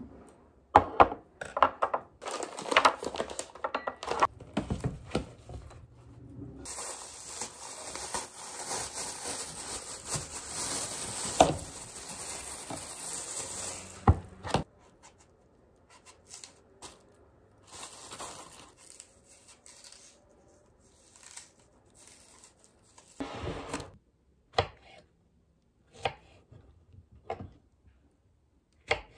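Food-prep handling noises: knocks of a glass mug and other items set down on a table, several seconds of steady rustling, then a small knife cutting strawberries on a wooden chopping board in single sharp taps about a second or so apart.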